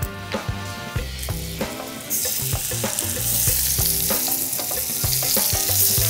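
Hot butter and oil foaming in a stainless steel frying pan, then a strong sizzle about two seconds in as seasoned chicken breasts go into the fat, frying steadily and growing a little louder.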